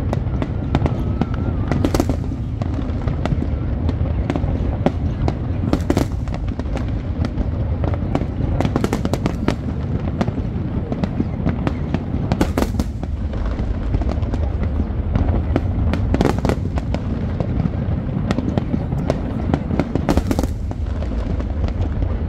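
Aerial fireworks display: a continuous low rumble of bursting shells, dense with sharp cracks, with a louder bang every few seconds.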